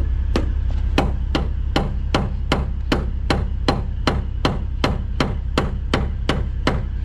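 Rubber mallet striking a metal lock mechanism on a dump truck trailer's frame again and again, about two and a half blows a second, over a steady low rumble. The blows are meant to knock loose a stuck lock that may be frozen or in need of adjustment.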